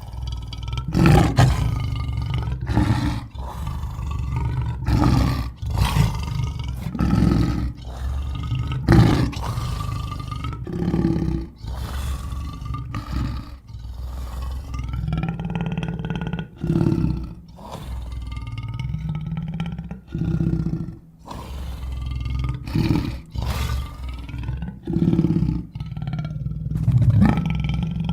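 A lion roaring and growling over and over, a string of deep calls each a second or two long with short breaks between them.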